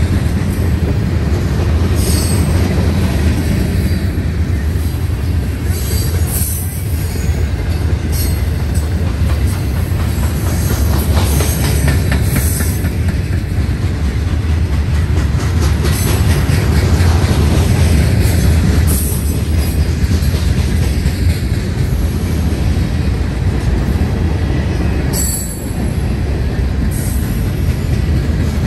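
Norfolk Southern freight train cars rolling past close by: a loud, steady rumble of wheels on rail, with short high-pitched wheel squeals every few seconds.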